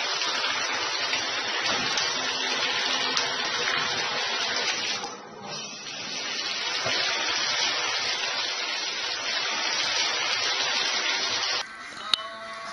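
Water spraying from a handheld shower head into a bathtub, a steady hiss that dips briefly about five seconds in and stops suddenly near the end.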